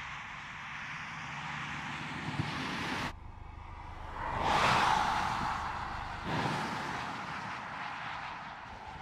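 Mercedes-Benz E300de Estate driving past, heard mostly as tyre and wind noise. The noise builds as the car approaches and cuts off abruptly about three seconds in. Then a quick pass-by whoosh peaks about a second and a half later and fades, with another sudden swell about six seconds in.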